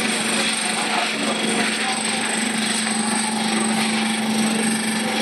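Wire shopping trolley rattling steadily as it is pushed along a hard store floor, with a steady hum underneath.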